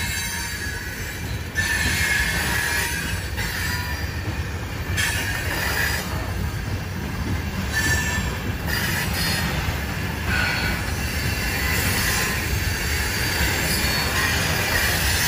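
Loaded coal hopper cars of a CSX freight train rolling steadily past, their steel wheels rumbling on the rails. A high-pitched wheel squeal comes and goes in stretches.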